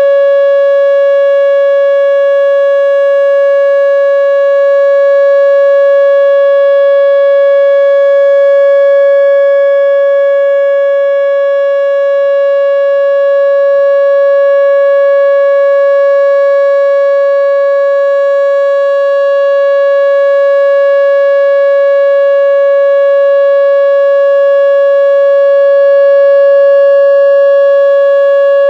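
Whelen WPS-2910 electronic outdoor warning siren sounding its alert signal: one loud, steady tone that holds the same pitch without rising or falling.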